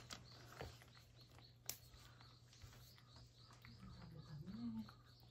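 Very faint clicks of a cat eating from a ceramic bowl, with small repeated bird chirps in the background.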